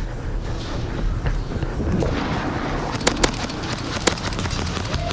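Three sharp airsoft gun shots: two in quick succession about three seconds in, and a third about a second later.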